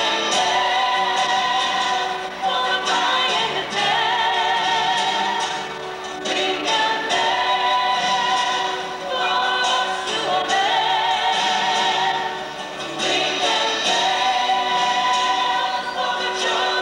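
A young woman singing solo into a hand-held microphone, in long held notes with vibrato, phrase after phrase with short breaths between.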